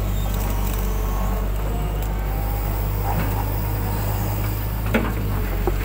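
Hitachi hydraulic excavator's diesel engine running steadily, heard from the operator's cab, with a sharp knock about five seconds in and a lighter one near the end as the boom and bucket work.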